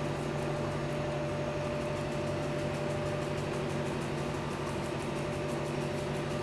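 A steady mechanical hum from a running appliance or fan, holding one low pitch with a few fainter higher tones and no change throughout.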